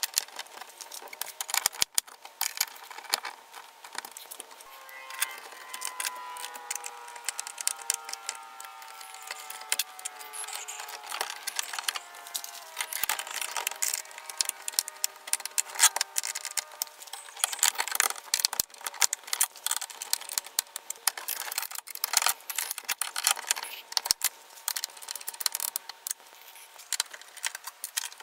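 Irregular metallic clicks and clinks of a hand tool and wires being worked inside a steel breaker panel.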